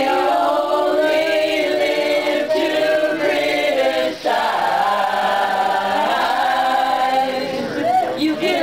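A group of people singing together, holding long notes, with a brief pause for breath about four seconds in.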